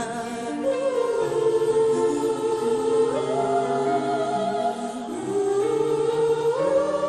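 Choir singing slow held chords, moving to a new chord every second or two.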